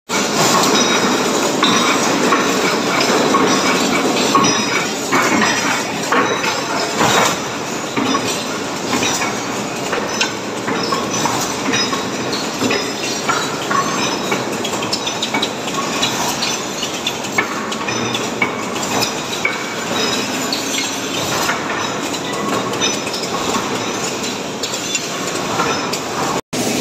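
Factory noise from automatic cutlery rolling machines running: a dense, continuous metallic clatter full of sharp clicks and knocks.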